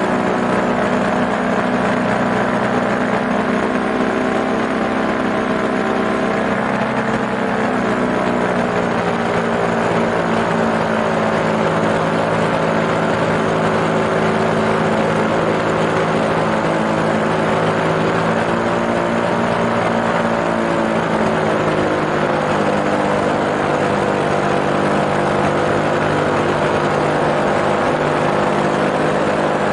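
Small engine of a light aircraft running steadily in flight, heard close up, its pitch easing down slightly a couple of times.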